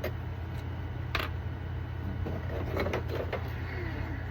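Steady low hum of a 3D printer running, with one sharp click about a second in and a few faint ticks of small plastic parts being handled.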